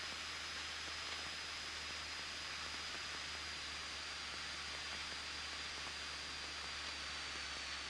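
Steady hiss of a Cessna 172N's cockpit audio in flight, with a faint thin high whine drifting slowly lower in pitch.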